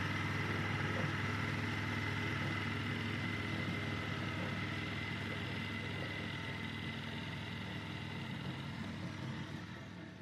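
Walk-behind gasoline lawn mower engine running steadily while cutting grass, fading out near the end.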